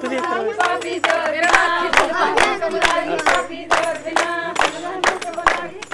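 A group of women singing a Punjabi folk song together, with sharp hand claps keeping time about twice a second.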